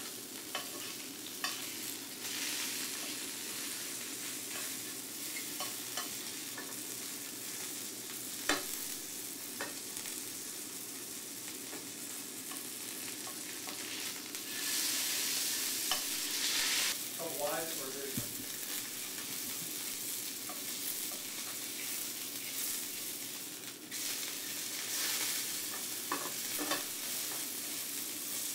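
A chicken breast searing in oil in a stainless steel pan, sizzling steadily, with a few sharp clicks. The sizzle grows louder for a couple of seconds about halfway through.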